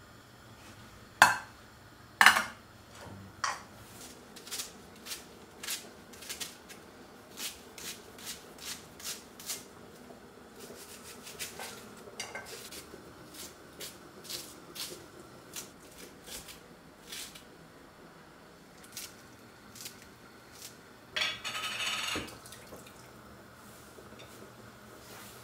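Kitchen utensil sounds at an enamel pot: two sharp knocks early, then a long run of light, irregular clicks as a knife cuts pieces into the pot, and a short rattle near the end as a jar of pickled vegetables is shaken out.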